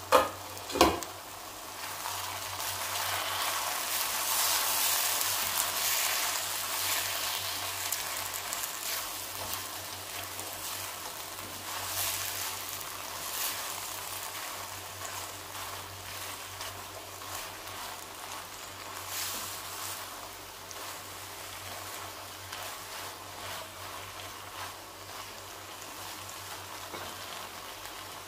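Two sharp knocks about half a second apart right at the start, then a pan of bitter gourd, onion and tomato masala sizzling in a wok while a spatula stirs it.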